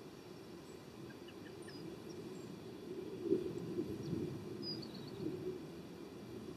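Outdoor background noise: a low rumble with a few faint, short bird chirps scattered through it.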